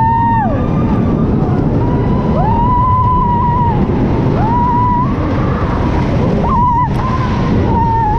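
Wooden roller coaster train rumbling steadily along its track. Over the rumble, long high wails rise, hold for a second or so and fall away, about every two seconds.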